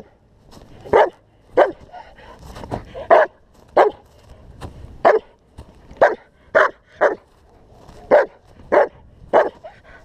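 German shepherd barking in protection work: about a dozen loud, sharp single barks, roughly one a second at an uneven pace.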